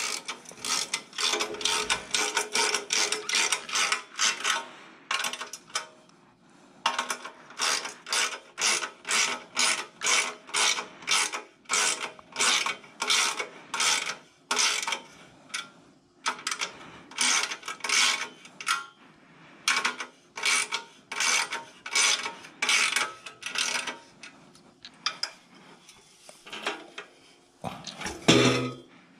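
Hand wrench tightening a bolt on an aluminium cart frame, in quick repeated clicking, scraping strokes, about three or four a second, in runs with short pauses. A louder knock near the end.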